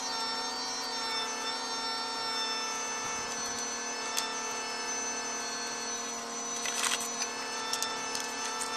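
A steady machine hum that holds one pitch throughout, with a few light clicks and a brief scrape about seven seconds in from tile work at the wall.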